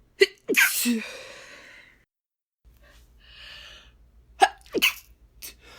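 A woman sneezing on purpose: a sharp catch, then a loud hissing 'shh' sneeze about half a second in that trails off over a second or so. After a breath in, three short, clipped sneeze bursts come near the end, typical of an accidentally stifled sneeze.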